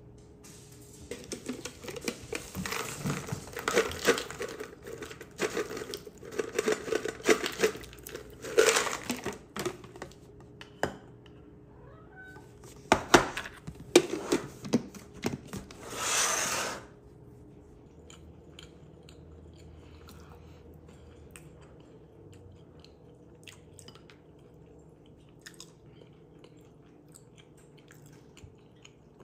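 Nuts rattling and clattering as they are shaken out of a jar onto a bowl of yogurt: a dense run of crackling clicks, then several louder sharp clatters and a brief rustle. After that, only faint scattered clicks.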